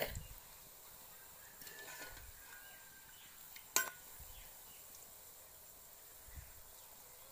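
A metal spatula clinks once, sharply, against a steel kadai about four seconds in, over the faint steady sizzle of a poori deep-frying in oil.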